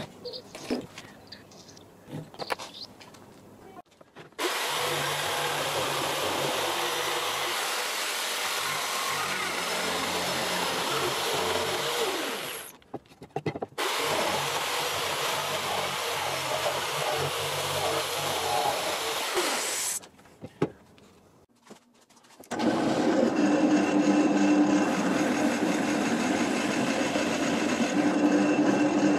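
Light scratching and tapping at first, then an electric jigsaw cutting through a wooden batten in two long runs with a short pause between. Near the end a bench drill press runs with a steady hum, louder than the jigsaw, as it bores a hole in the wood.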